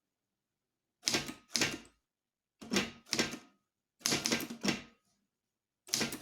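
English typewriter keys striking as capital letters are typed, in short groups of two or three strokes with silent pauses between, then a quicker steady run of strokes near the end.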